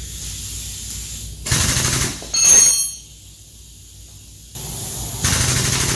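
Hydraulic tube bender being worked to bend square steel tube: harsh noise in bursts, with a brief high squeal about two and a half seconds in, a quieter pause, then steady loud noise from about four and a half seconds in.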